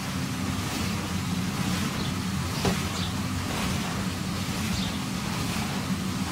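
Bouncy castle's electric inflator blower running with a steady low hum, keeping the inflatable pumped up.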